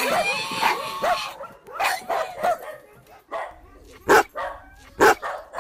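Barking and yipping: a quick run of short yips, then sparser barks, with two loud, sharp barks about four and five seconds in.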